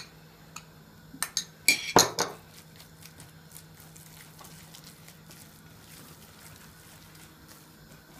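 Metal spoon scraping dark sour plum paste off a small saucer and knocking against a white enamel bowl, then a utensil stirring the thick filling in the bowl. A few sharp clinks come in the first two seconds, the loudest about two seconds in, followed by soft, faint stirring and scraping.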